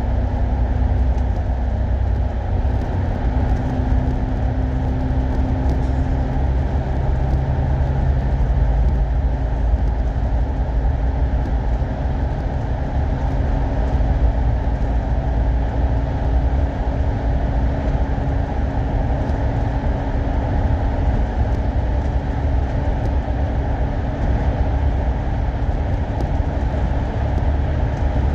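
A bus running steadily on the road: a continuous low drone of engine and road noise, with the engine note shifting slightly about six seconds in.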